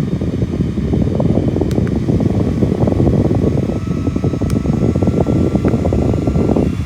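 Loud, steady rushing noise of moving air, mostly low in pitch, with a faint thin tone above it.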